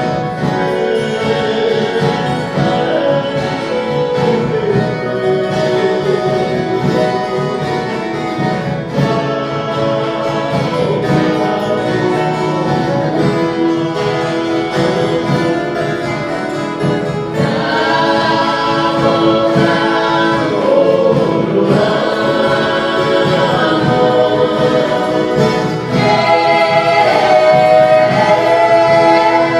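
Viola caipira ensemble playing a Christmas song, with a group of voices singing over the plucked strings.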